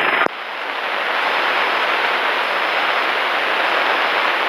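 Steady, even rushing noise of a Cessna 172 Skyhawk in flight, engine and airflow heard from the cockpit as a constant hiss with no clear engine beat. Just after the start, a radio transmission cuts off with a click.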